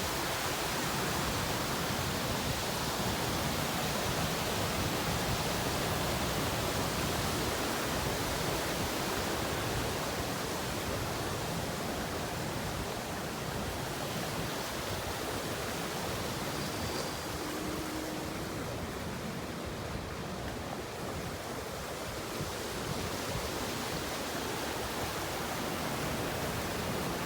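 Waterfall rushing steadily: a constant, even wash of falling-water noise.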